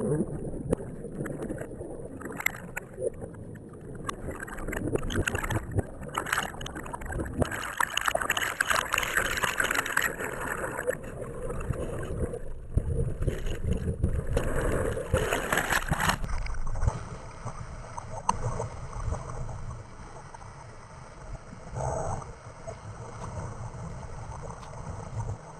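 Whitewater rushing and bubbling, muffled, from a camera under the surface, with uneven splashing surges. About sixteen seconds in it cuts to the camera above water at the side of an open canoe running the rapid: a quieter, steady rush of whitewater.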